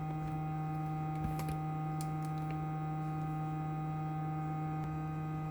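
Steady electrical hum with a low tone and several higher overtones, with a few faint ticks about a second to two seconds in.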